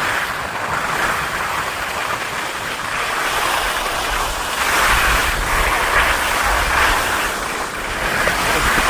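Skis sliding and carving on snow, with wind rushing over the microphone: a steady hiss that swells and eases in slow waves.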